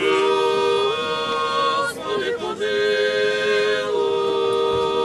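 Unaccompanied Orthodox liturgical chant by clergy at a memorial service: several voices in harmony holding long notes, with a short break for breath about two seconds in.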